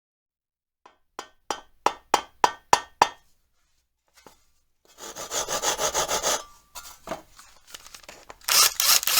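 A run of quick, rhythmic scraping strokes, about three a second, like hand-tool work such as sawing. After a short gap comes a longer stretch of dense scraping noise, and a louder burst near the end.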